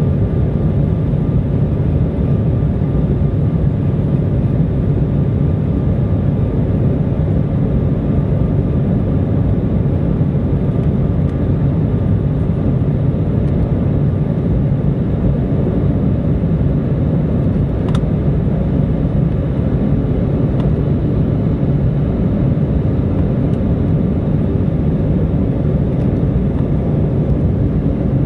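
Steady jet engine and airflow noise inside an airliner cabin during the climb-out after takeoff, a low rumble with a faint steady whine above it. One small click about two thirds of the way through.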